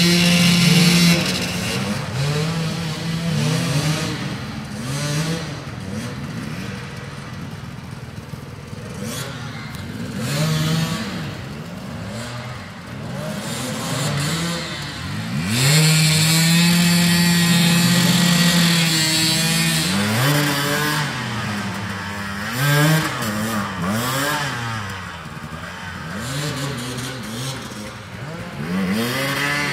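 Off-road dirt bike engine revved in repeated short blips, its pitch rising and falling again and again. About halfway through it is held at high revs for roughly four seconds.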